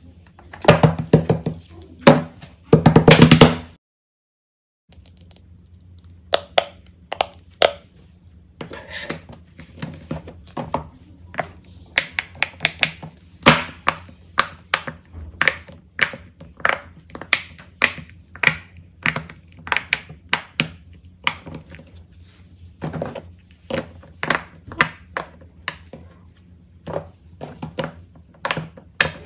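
Silicone pop-it fidget toys being handled: a long string of irregular sharp taps, thunks and pops as they are picked up, set down on a hard surface and pressed. It opens with about three seconds of a loud, dense burst of sound that cuts off into a second of dead silence.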